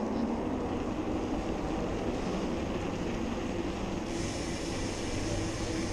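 Steady riding noise from a bicycle on a paved walkway: tyre rumble and wind on the handlebar-mounted camera, with a steady low hum. A higher hiss joins about four seconds in.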